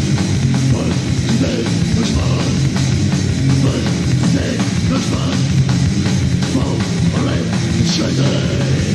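Heavy metal band playing on a demo recording: distorted electric guitars, bass and drums in a continuous, loud riff.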